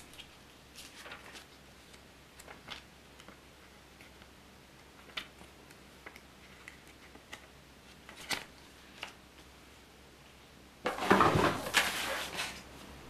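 Paper booklet and leaflets being handled by hand: soft rustles and small clicks as pages are turned and cards moved on a wooden floor, with a louder burst of rustling and knocks near the end as they are put down.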